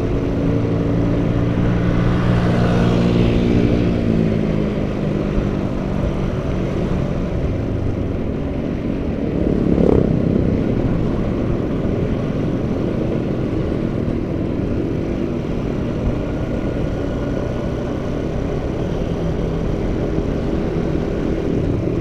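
Yamaha Jupiter MX 135's single-cylinder four-stroke engine pulling in fourth gear on a ride, rising in pitch as it speeds up over the first few seconds and then running steadily. It has a slight valve noise that the rider puts down to the valves being set a little loose. A brief louder sweep comes about ten seconds in.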